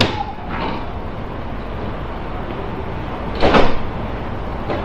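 Steady low hum with a few short scraping knocks, one at the start and a louder one about three and a half seconds in.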